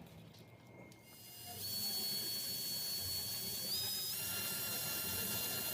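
A steady hiss with a high whistling tone, starting about a second in; the whistle steps up in pitch twice.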